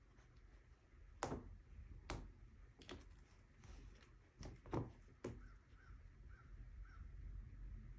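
A cat pawing at the bottom of a door and its threshold, making about half a dozen sharp taps and knocks over some four seconds. Near the end come four faint, short chirps in a quick even row.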